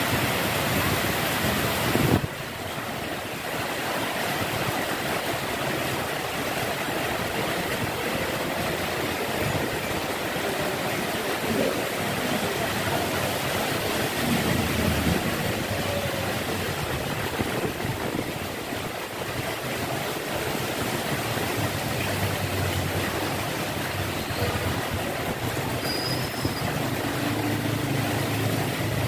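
Steady rain falling, an even hiss that drops suddenly to a lighter level about two seconds in. Near the end a low engine hum from a passing or idling vehicle joins the rain.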